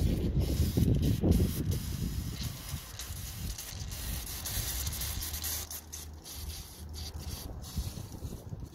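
Gas and foamy coolant hissing out past the loosened cap of a Cummins ISX15's coolant expansion tank, loudest about four to six seconds in. The hiss comes from a cooling system pressurized by a broken cylinder head gasket.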